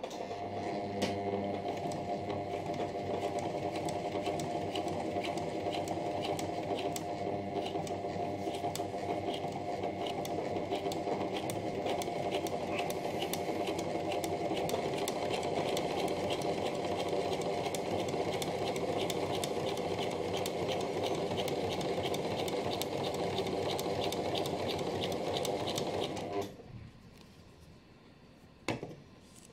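Pfaff electric sewing machine stitching at a steady speed, a rapid even ticking of the needle over the motor's run; it stops near the end, followed by one or two sharp clicks.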